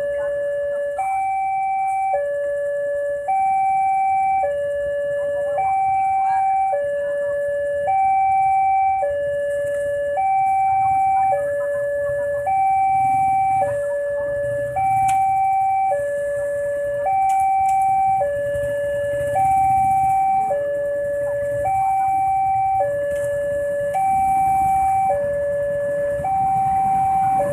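Railway level-crossing warning alarm sounding its electronic two-tone: a higher note and a lower note alternate, each held about a second, the higher one louder. It is the signal that a train is approaching and the crossing is closed.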